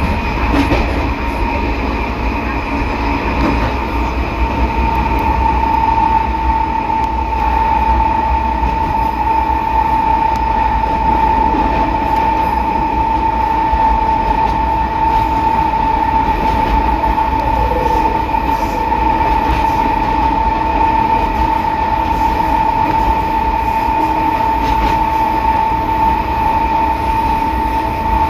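Metro train's traction motor and inverter running at steady speed: a steady high whine that comes up a few seconds in and holds, over a low rumble. Under it is the growl ("ronco") of the reduction gearbox, which is probably short of lubrication.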